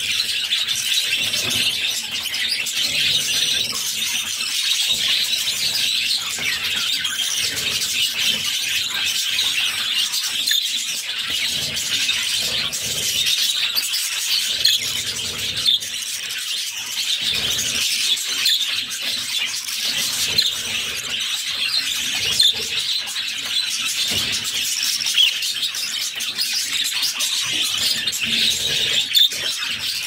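Budgerigar chicks making continuous high-pitched begging calls, the call of hungry chicks being fed by the mother budgie.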